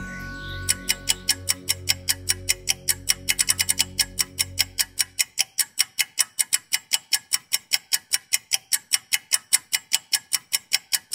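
Rapid, even clock-like ticking, about five ticks a second, starting just under a second in, with a brief quicker flurry around three seconds. A low ambient music drone underneath fades out about five seconds in, leaving the ticking alone.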